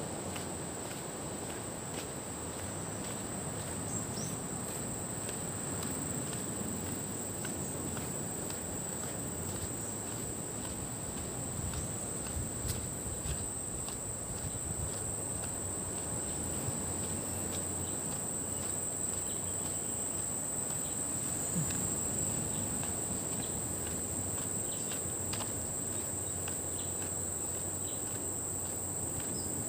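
Insects calling in a steady, unbroken high-pitched drone.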